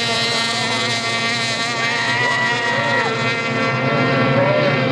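Two-stroke racing outboard motors on race boats running at high revs, several engine notes at once; one note drops in pitch about three seconds in.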